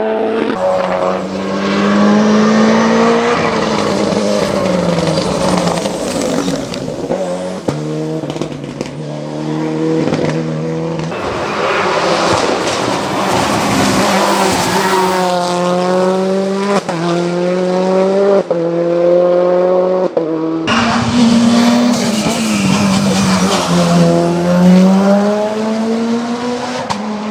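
Mitsubishi Lancer hillclimb prototype's engine at full throttle, its pitch climbing and then dropping sharply at each gearshift, several upshifts in quick succession. Near the end the sound breaks off abruptly, then comes back with the engine falling in pitch before climbing hard again.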